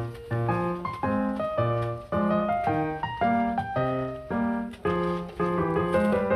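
Background music: a keyboard melody over low bass notes, struck in a steady rhythm.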